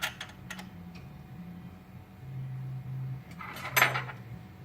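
Small metal clicks, then a short scraping rattle ending in a sharp click about four seconds in, over a low hum. This is the reverse-thread nut being put back on the key machine's cutter shaft and snugged up to hold the slot wheel.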